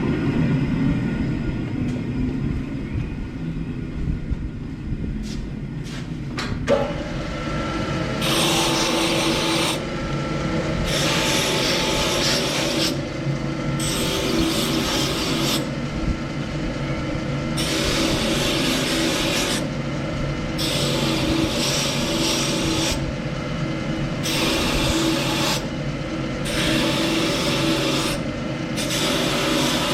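Motor-driven steel wire wheel running, then scouring a freshly forged steel leaf in repeated passes of a second or two each with short breaks, brushing off the forge scale to shine the metal. A sharp click comes a little before the passes begin.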